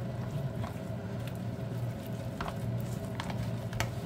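Wet squelching and slapping of gloved hands working a thick marinade over a raw whole turkey in a bowl, in irregular short squishes, over a steady low hum.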